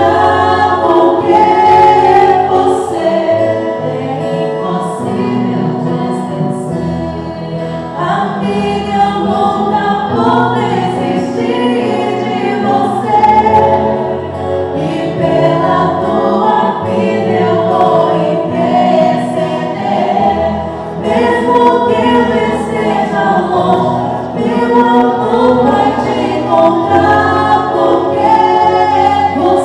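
A choir-style vocal group singing in harmony over musical accompaniment, with long held notes and sustained low bass notes.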